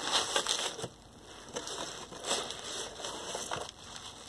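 Bubble wrap crinkling and cardboard rustling as a wrapped item is handled and lifted out of its box, in several bursts, loudest at the start.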